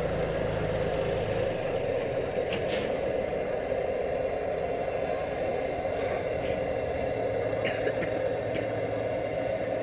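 A blowlamp burning steadily with an even rushing sound, heating the hot-bulb glow head of a Lanz Bulldog before a start. A few faint high clinks come about three and eight seconds in.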